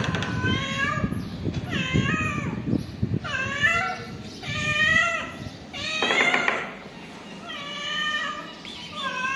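Ginger-and-white cat meowing over and over, about seven drawn-out meows roughly a second apart, with a rougher call about six seconds in. She is a nursing mother cat begging for food.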